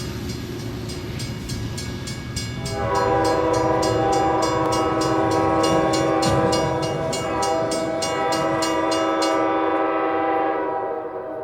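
Freight train passing a level crossing: steady rail rumble with a rapid, even clanging from the crossing bell. About three seconds in, the locomotive's multi-chime air horn sounds one long chord, held for several seconds before fading out.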